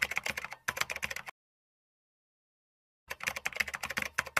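Rapid keyboard typing clicks, a typing sound effect for text appearing on screen. They break off for about two seconds of total silence, then start again.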